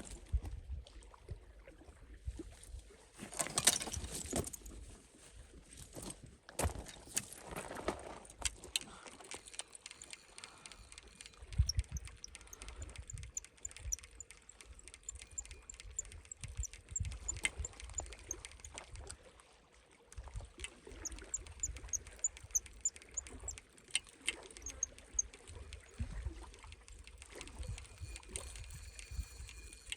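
Wind buffeting the microphone in a low, uneven rumble, with scattered clicks and rustles of handling and two louder noisy swells near the start, and runs of faint high chirps in the middle.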